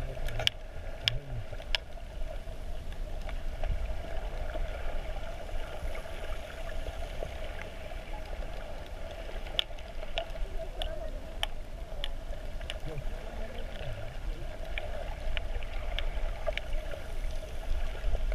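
Underwater sound picked up by a submerged camera in shallow sea: a low rumble of moving water with a steady hum. Scattered sharp clicks and crackles are heard throughout.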